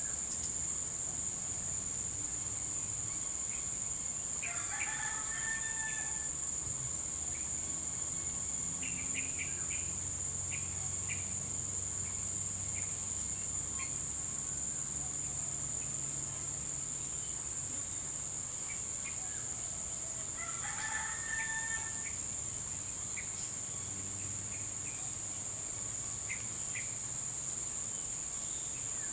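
Tropical bush ambience: insects buzzing as one steady high-pitched whine, with a feral rooster crowing twice, about five seconds in and again about twenty-one seconds in. Short bird chirps come in between, over a faint low rumble of distant traffic.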